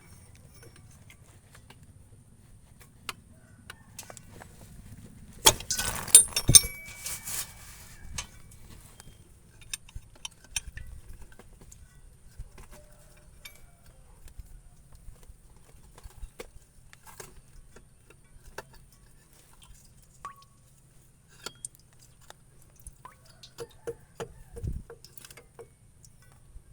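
Metal tools and parts clinking and rattling as they are handled, with a burst of louder clinks about six seconds in and scattered single clicks after.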